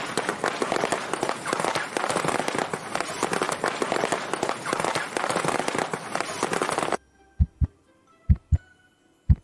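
Dense crackling noise packed with fine clicks for about seven seconds, cutting off suddenly. It is followed by a heartbeat sound effect: low thumps in pairs, about one pair a second.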